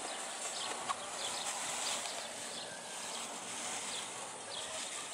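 Birds chirping outdoors: short high calls repeated about twice a second over a steady hiss.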